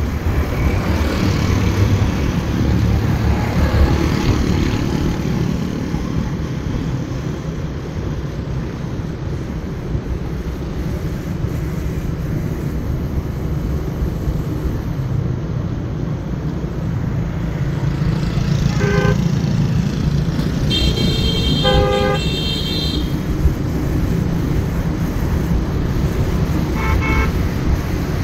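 Steady rumble of a motorbike ride, with engine and road noise and wind on the microphone. Vehicle horns sound over it: a quick series of short beeps about two-thirds of the way in, a steady honk lasting about two seconds just after, and another short series of beeps near the end.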